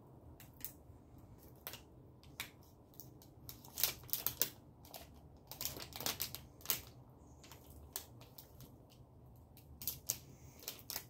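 Irregular crisp crunches and crackles of a Power Crunch wafer protein bar being bitten and chewed close to the microphone, thickest in the middle.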